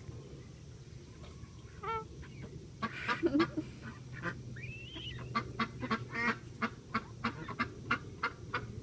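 Embden gosling snoring with soft little honks while falling in and out of sleep. A few scattered short calls come first, then one longer call that rises and falls, then a quick even run of short peeps, about five a second.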